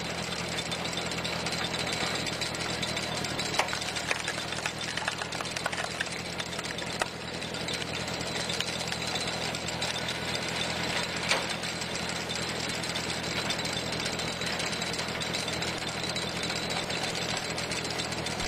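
Tractor engine running steadily, driving a PTO-powered cone screw log splitter as the screw bores into a log, with a few short sharp cracks as the wood gives way.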